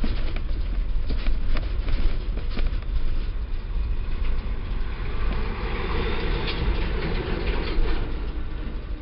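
A vehicle hauling a stripped-down vending machine, driving slowly over rough ground. There is a steady low engine and road rumble, with sharp knocks and rattles from the load in the first few seconds and a thicker clattering rattle from about five seconds in.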